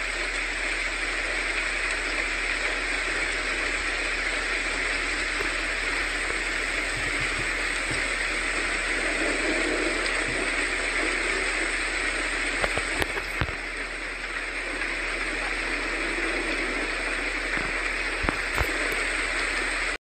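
Heavy rain and hail falling, a steady hiss with a few sharp ticks of hailstones striking hard surfaces.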